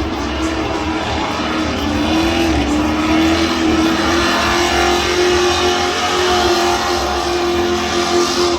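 Car engine held at steady high revs during a burnout, its pitch wavering only slightly.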